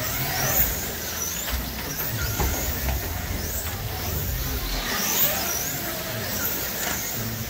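Wing slot cars racing on a banked track, their electric motors whining in repeated rising and falling glides as they speed up and slow through the turns, over a low rumble.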